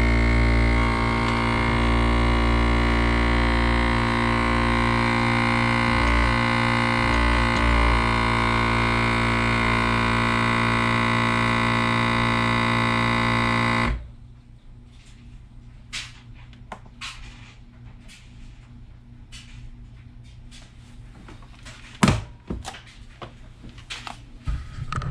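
Countertop vacuum sealer's pump running with a loud, steady drone as it draws the air out of a bag of meat. It cuts off suddenly about halfway through once the bag is pulled tight. Quiet clicks and plastic handling follow, with a sharp click near the end as the sealer's lid is opened.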